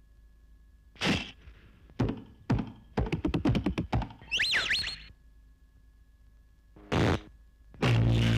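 Cartoon sound effects: a few sharp thunks, a quick rattling run of knocks about three seconds in, then a wobbling whistle that swoops up and down, followed by more loud thumps near the end.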